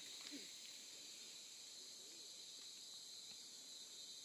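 Faint, steady high-pitched drone of forest insects.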